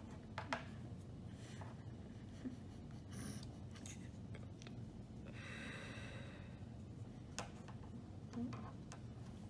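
Faint handling sounds of small craft materials being worked by hand: a few light clicks and taps, with a short soft rustle about five seconds in, as a cloth head covering is tied onto a popsicle stick.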